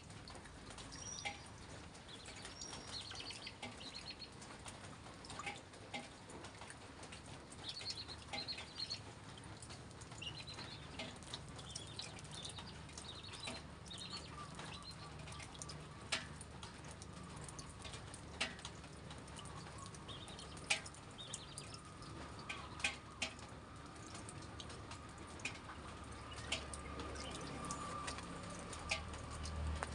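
Stir-frying minced pork and sesbania flowers in a non-stick wok: the spatula clicks and scrapes against the pan at irregular moments over a faint sizzle.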